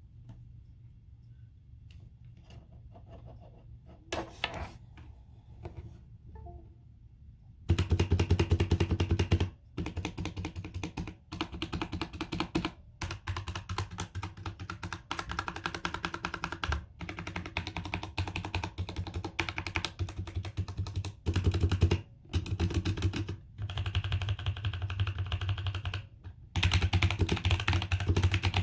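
Velocifire TKL78 mechanical keyboard with tactile Outemu Brown switches being typed on. A few scattered key clicks for the first several seconds, then fast typing in bursts with short pauses between them.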